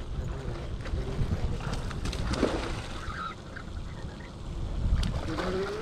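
Wind rumbling on the microphone, with a few faint clicks.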